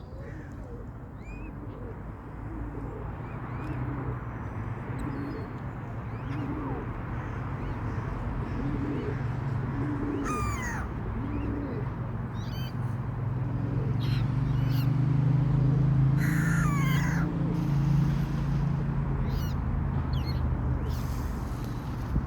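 Birds calling in short, sharp notes, some sliding down in pitch, over a steady low drone that grows louder past the middle and then eases.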